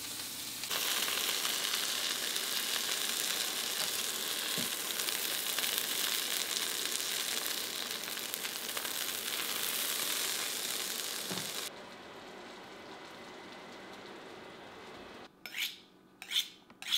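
Duck breasts searing fat-side down in oil in a hot skillet: a loud, steady sizzle. It cuts off suddenly about two-thirds of the way through, and near the end a kitchen knife is drawn along a honing steel in a few quick, evenly spaced strokes.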